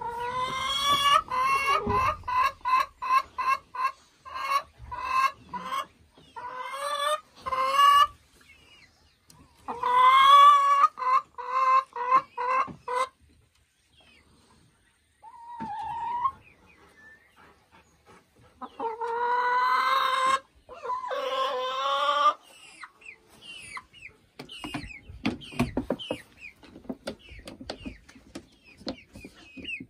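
Boris Brown laying hens cackling loudly: runs of short, rapidly repeated clucks broken by longer drawn-out calls. The calls die away near the end, leaving faint rustling and clicks.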